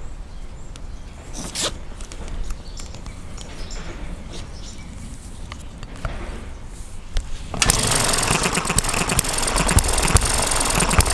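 Handling noises and small clicks as a starting cord is wound onto the flywheel hub of an ET6 model four-stroke petrol hit-and-miss engine, then about three-quarters of the way through a cord pull and the engine starts, running with rapid, rattly firing.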